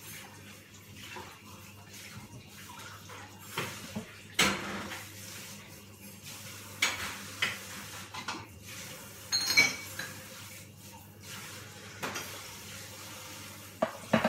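Dishes and cutlery clinking and knocking now and then over a low steady hum, about half a dozen separate knocks, one with a brief metallic ring. Near the end a small porcelain dish is set down on the steel counter.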